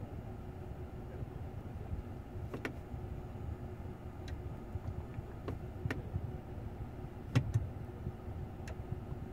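Low, steady rumble of a running Mercedes-Benz GLC300 heard inside its cabin, with a few faint, scattered clicks from the infotainment controller as the menus are scrolled.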